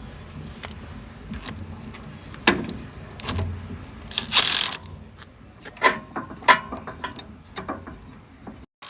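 Irregular metal clicks and scrapes as the threaded insert of a 3/8-inch reusable repair fitting is screwed into a one-wire pressure washer hose with a hand tool, with one longer scrape about four seconds in.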